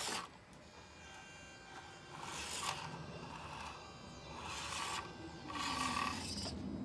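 Mini RC crawler's small electric motor and gearbox whirring in several short spurts as it crawls over rocks, with its tyres and body scraping on the stone.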